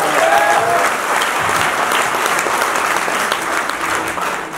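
Audience applauding after a recited couplet, the clapping thinning out near the end.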